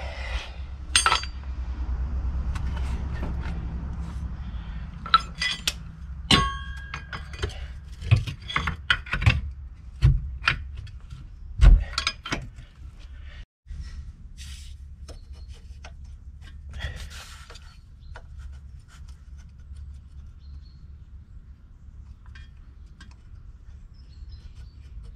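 Scattered metallic clinks and clicks of hand tools and bolts being worked against the electric motor's steel mounting bracket while the bolts are refitted, a few of them ringing briefly. The clinks are busier in the first half and sparser and fainter after a short break about halfway.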